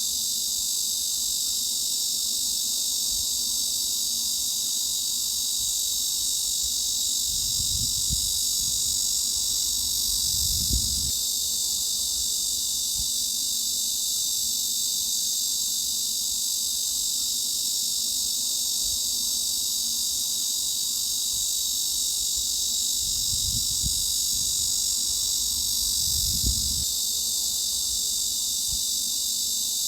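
Cicadas buzzing in a steady, unbroken high-pitched drone.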